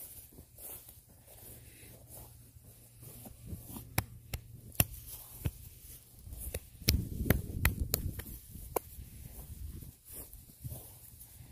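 Handling noise: a run of sharp clicks and, loudest from about six to eight seconds in, low rubbing thumps as the camera's microphone brushes against a Holstein cow's hide.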